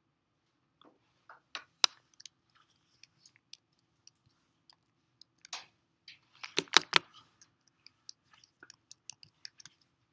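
Scattered small clicks and taps during a pause, with a cluster of sharper clicks about six and a half to seven seconds in.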